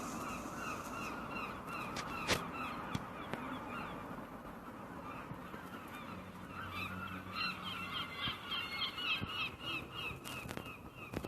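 A flock of birds calling in quick, overlapping notes, growing busier about seven seconds in. One sharp click sounds a little over two seconds in.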